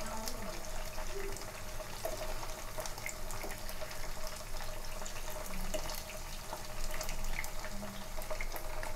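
Chicken 65 pieces shallow-frying in oil on a low flame: a steady sizzle with many small crackling pops, while the pieces are turned over in the pan with a wooden spatula.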